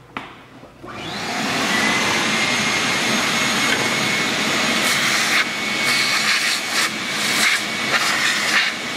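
Shop vacuum starting up and running steadily with a faint whine, sucking aluminium drilling chips out of the drill jig and the drilled head bolt hole, with brief rattles as chips are drawn in.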